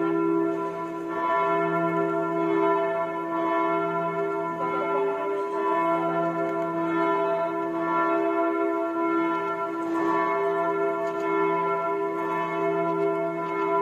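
Budvar, the 1995 church bell cast by Rudolf Perner's foundry in Passau, swinging and tolling: a fresh stroke every second or two, each ringing on into the next over a steady deep hum.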